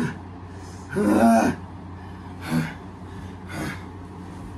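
Wrestlers' exertion sounds: a man's strained groan with a wavering pitch about a second in, then two short breathy grunts about a second apart.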